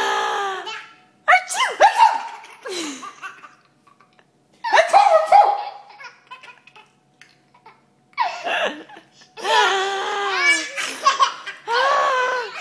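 Baby boy laughing hard in about five bouts of belly laughter, with short pauses between them.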